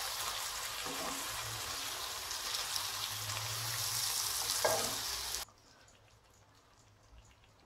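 Chopped tomatoes sizzling in a hot nonstick wok as a wooden spatula stirs them into the onion and spice base, with a couple of louder scrapes of the spatula. The sizzle cuts off suddenly about five and a half seconds in, leaving only faint ticks.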